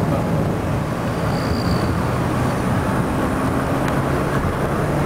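Steady road noise of a moving car heard from inside the cabin: a low engine hum under tyre and wind rumble.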